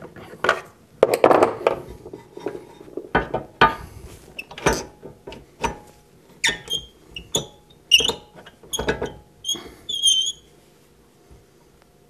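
Wood lathe tailstock being worked along the metal lathe bed: a run of irregular metal clunks and scrapes, with short high squeaks in the second half, stopping about ten and a half seconds in.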